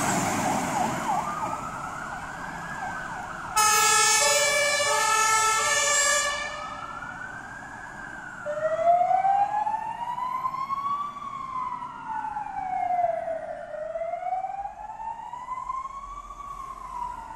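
Fire engine siren on an Iveco Eurocargo Magirus aerial ladder truck, wailing slowly up and down. About three and a half seconds in, a loud two-tone Martin air horn alternates between its two notes for about three seconds. Then the wail resumes, with a second wail overlapping and fading as the truck drives away.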